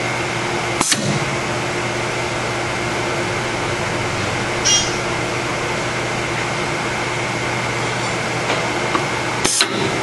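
Automated crimp-and-test machine running with a steady hum, a sharp click about a second in, a brief higher-pitched sound near the middle and a couple of clicks near the end.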